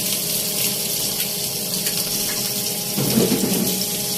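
Mudskippers (nivti) frying in hot oil on a tawa: a steady sizzle, the fish nearly done.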